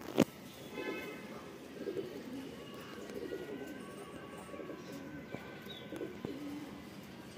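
Domestic pigeons cooing, low and wavering, with a sharp click about a quarter second in and two fainter clicks later on.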